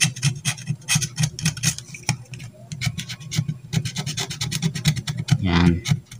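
Utility-knife (cutter) blade scraping the varnish insulation off a thin enamelled copper wire on a circuit board, in many quick short strokes with a brief pause about two seconds in. The scraping bares the copper so that solder will take on it.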